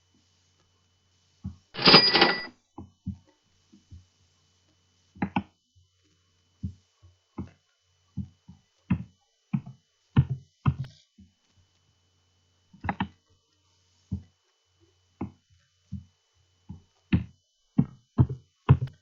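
Computer mouse clicking again and again, unevenly. About two seconds in, PowerPoint's 'Cash Register' sound effect plays once with a ringing tone; it is the loudest sound here.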